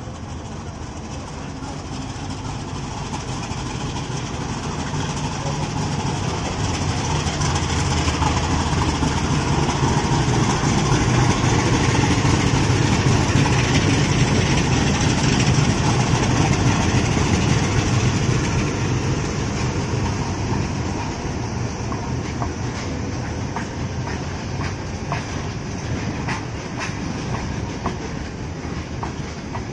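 Twin Wabtec diesel locomotives hauling a freight train run past: the engines' deep drone grows louder over about ten seconds and peaks as they go by. Then the open freight wagons roll past with their wheels clicking over the rail joints.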